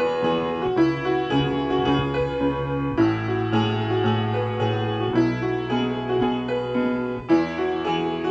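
Instrumental hymn of response played on a keyboard instrument: sustained chords over a bass line that moves about once a second.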